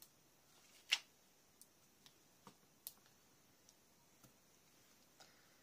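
Faint scattered clicks and taps as small flower gems are picked up with a pen-style gem pickup tool and pressed onto a paper scrapbook page, with one sharper click about a second in.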